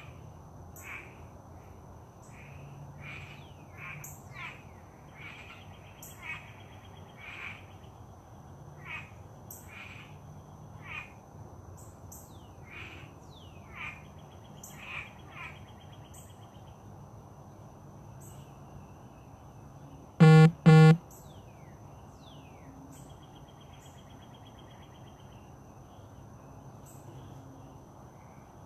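Wild birds calling: repeated short descending chirps a second or so apart over a steady high buzz. About twenty seconds in come two short, loud honking notes in quick succession.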